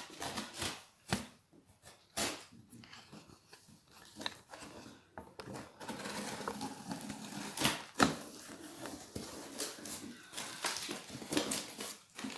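A cardboard parcel being opened by hand: packing tape tearing and cardboard and packaging rustling, with many sharp knocks and clicks, busier from about halfway through.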